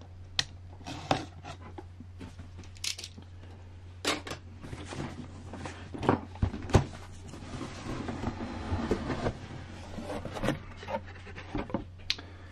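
Cardboard kit box being opened: a utility knife slits the tape seals, then the lid is worked off, giving a scatter of short clicks, taps and scrapes. A steady low hum runs underneath.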